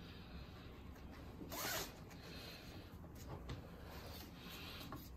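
Nylon webbing strap being pulled and slid through a tri-glide buckle on a scuba harness, a faint rasping slide; the loudest pull comes just under two seconds in, followed by several softer rubs.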